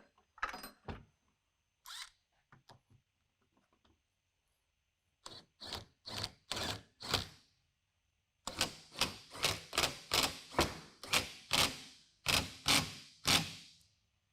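A series of short, sharp knocks or clicks: a few scattered ones, then a steady run at about three a second through the second half.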